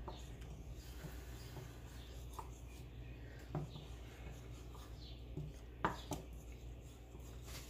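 A wooden spoon stirring thick, simmering mole sauce in a stainless saucepan: a few soft pops and clicks, the sharpest about six seconds in, over a steady low hum.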